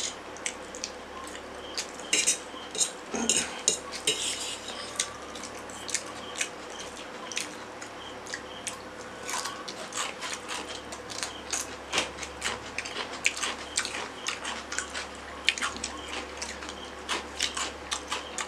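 Cutlery clinking and scraping against stainless steel plates in many short, irregular clicks.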